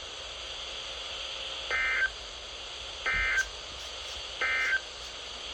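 Three short bursts of Emergency Alert System SAME data tones, the end-of-message code that closes a weather radio alert. Each burst is a warbling two-tone chirp about a third of a second long, with the bursts about a second apart, over a steady radio hiss.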